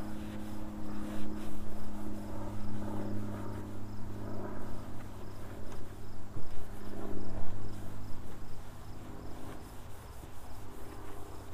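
A cloth towel rubbing and wiping across an ATV's plastic body panels as a spray coating is buffed on. Under it run a steady low motor hum and crickets chirping in an even rhythm.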